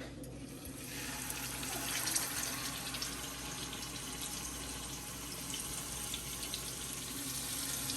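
Seasoned chicken frying in hot sunflower oil in a pan: a steady sizzle with small crackles that builds up over about the first second, as the chicken goes into the oil.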